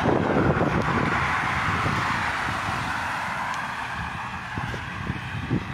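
Outdoor road-traffic noise: a steady rush that slowly fades over a few seconds, over a gusty low rumble of wind on the phone's microphone.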